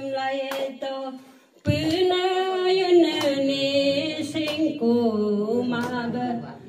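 Elderly woman singing a gospel song unaccompanied into a hand-held microphone, holding long notes that bend in pitch, with a short pause for breath about one and a half seconds in.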